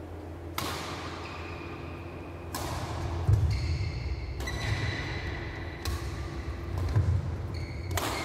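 Badminton rally: sharp cracks of rackets striking the shuttlecock about every one and a half to two seconds, each ringing briefly in the large hall. Two heavier thuds of players' footwork on the court come between hits.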